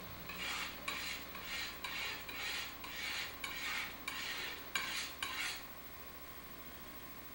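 Red pigment being ground on a slab with a glass muller: about ten gritty rubbing strokes, roughly two a second, the last ones scraped with a palette knife. The strokes stop about six seconds in.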